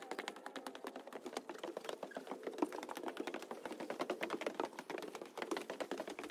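Footsteps of two people going down wooden stairs: a quick, uneven run of knocks on the wooden treads.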